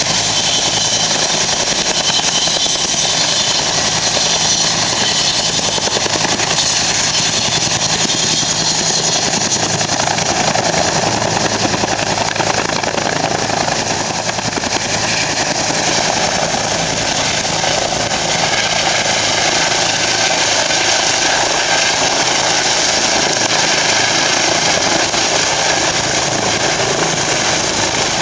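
Turboshaft helicopters running close by, a Bell UH-1D and a Eurocopter EC 135: loud, steady rotor and turbine noise. A thin high turbine whine rises a little about ten seconds in and then holds.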